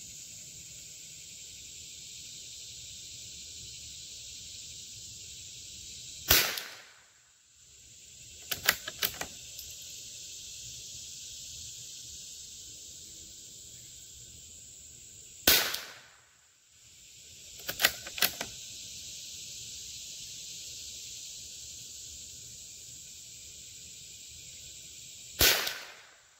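Three shots from a Howa M1100 .22 LR bolt-action rifle, about nine seconds apart. About two seconds after each of the first two shots, the bolt is worked with a quick run of clicks.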